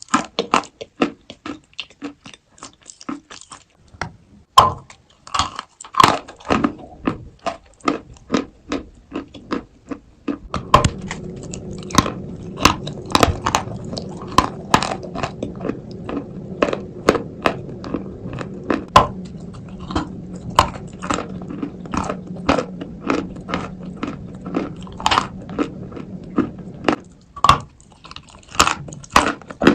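Close-up crunching bites and chewing of dry, powdery Turkestan white clay, sharp crunches coming several times a second. From about ten seconds in, a low steady hum runs underneath until near the end.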